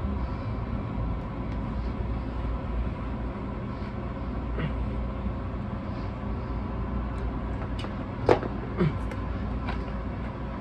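Plastic shrink wrap being slit with a knife and peeled off a sealed vinyl LP jacket: faint crackles, then two sharper clicks about eight seconds in, over a steady low background hum.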